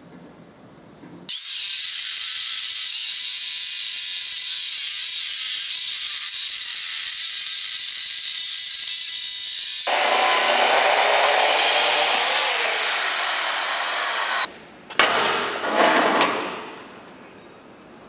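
Abrasive chop saw grinding through a steel channel section: a loud steady grinding hiss starts about a second in. Partway through it turns coarser, with a whine that climbs and then falls away, and a few short bursts of grinding come near the end before it dies down.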